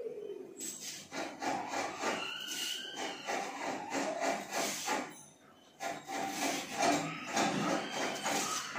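Kitchen knife scraping and shaving the green skin off a raw plantain, a run of short rasping strokes with a brief pause a little past the middle.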